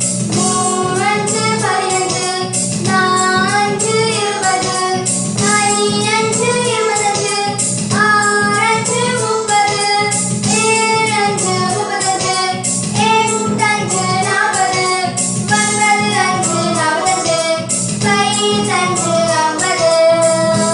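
A children's song reciting the five times table in Tamil: a sung voice over backing music with a steady beat, one line of the table about every two and a half seconds.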